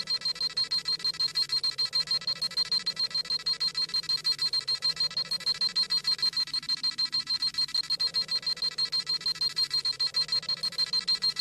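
Dragon Ball Z scouter sound effect: a high-pitched electronic beeping, pulsing evenly and rapidly several times a second without a break. It is the sound of the scouter scanning and reading a power level.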